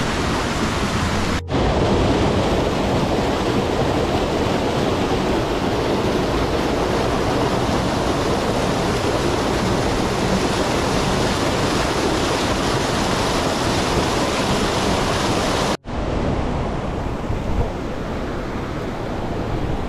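Rushing water of a rocky mountain stream and small waterfall, a loud steady rush. It breaks off for an instant twice, about a second and a half in and again near the end, and is a little softer after the second break.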